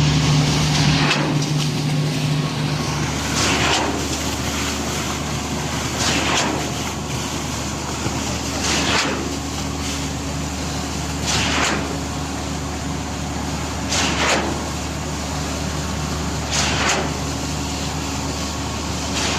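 Putzmeister 42M truck-mounted concrete boom pump running steadily under load, its engine a constant drone, with a hissing surge about every two and a half seconds as the pump cycles from one pumping stroke to the next.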